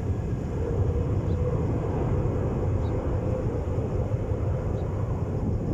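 Jet airliner engine noise: a steady low rumble with a faint held tone near the middle of it.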